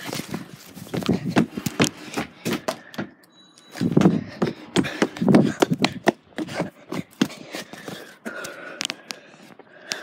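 Handling noise from a phone carried on the move: irregular knocks, clicks and rustles of hands and clothing against the microphone, with heavier thumps about four to six seconds in.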